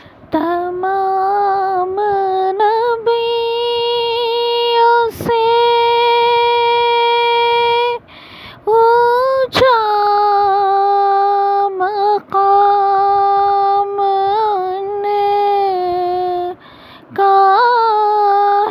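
A high solo voice singing a naat unaccompanied, in long held notes with small turns and brief pauses between phrases.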